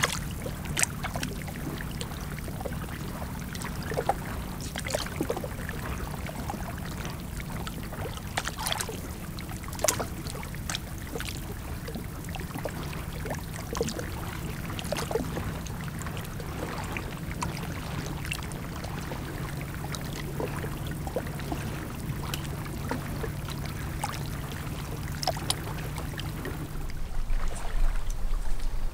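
A steady low motor hum, with water trickling and splashing and scattered small knocks over it; the hum changes about two seconds before the end.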